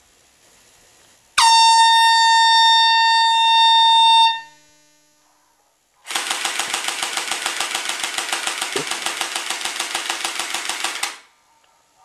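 A loud horn blast, one steady tone held for about three seconds. After a short pause comes a harsh buzzing horn sound, pulsing rapidly and evenly for about five seconds.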